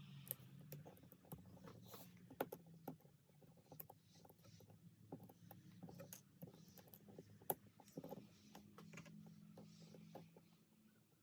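Faint, irregular small clicks and taps of small tools and Samsung Galaxy S8 parts being handled while the charging port module is refitted, over a low steady hum.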